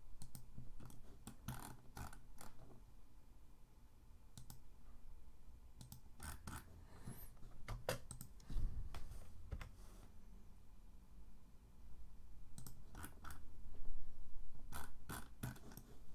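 Computer mouse and keyboard clicks, scattered singly and in quick clusters of two or three, with a soft low thump about halfway through.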